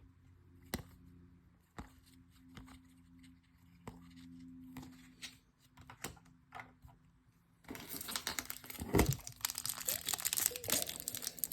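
A few light scattered clicks and taps, then about two-thirds of the way in a trading-card pack's foil wrapper being crinkled and torn open, loud and continuous.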